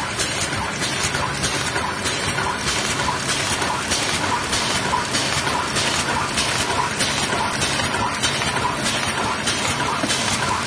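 Automatic eraser packing machine running continuously, its mechanism cycling in an even rhythm of about two strokes a second over a steady hiss of machine noise.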